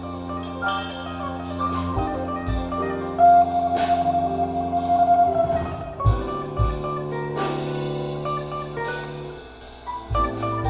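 Jazz played from a vinyl record through Tannoy Stirling loudspeakers: a drum kit with cymbal strokes over a walking bass line, and a long held melody note in the middle.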